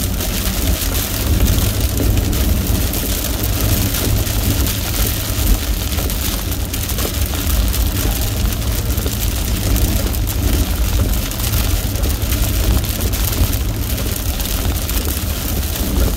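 Inside a car driving on a rain-soaked road in a downpour: a steady low road rumble under an even hiss of rain and tyre spray.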